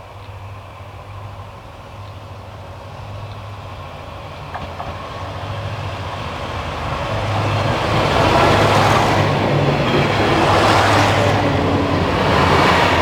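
Three-car diesel railcar train, a KiHa 20 leading KiHa 2000 and KiHa 3710 cars, approaching and passing close by. A steady diesel engine hum grows louder, and from about halfway through the wheels rumble on the rails as the cars go past.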